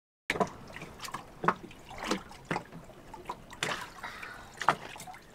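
Small wavelets lapping against the hull of an anchored sailboat, a run of irregular soft splashes and trickles.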